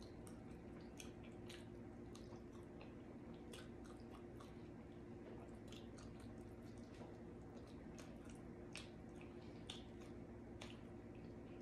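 Faint close-up chewing of barbecue rib tips: soft wet mouth clicks and smacks at irregular intervals over a low steady hum.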